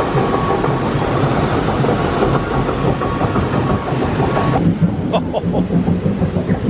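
A roller coaster train rolling along its track with a steady rumble and a faint whine. About two-thirds of the way through the sound changes and a run of evenly spaced clicks starts.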